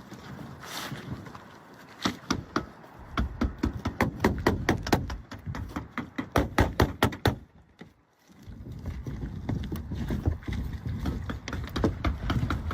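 Roofing work while shingling: many sharp knocks and clicks, several a second, with a short pause a little past halfway.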